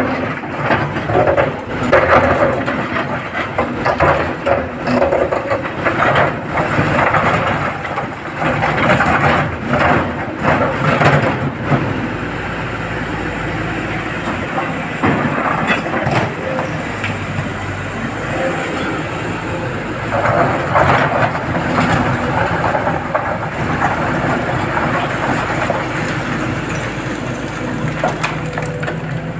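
Heavy diesel excavator at work: the engine runs steadily under dense, irregular clanks and rattles for roughly the first half, then settles to a steadier drone with only occasional knocks.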